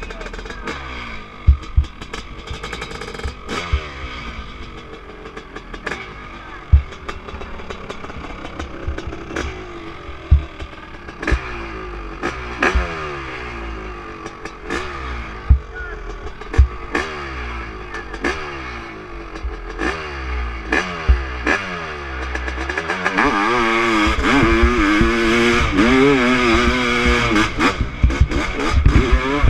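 Honda CR500 single-cylinder two-stroke dirt bike engine, blipped up and down repeatedly at the start line with scattered sharp cracks. About 23 seconds in it goes to full throttle, louder and steadier, as the bike launches up the steep hill climb.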